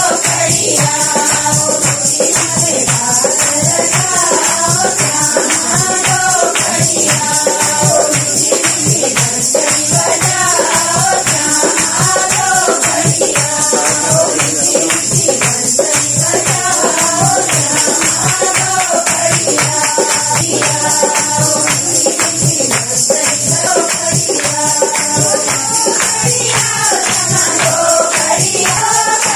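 A group of women singing a Himachali folk song, kept in time by hand-clapping and a steady tambourine-like jingling.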